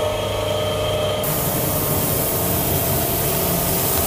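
Compressed-air paint spray gun hissing as it starts spraying, about a second in, over a steady machine hum.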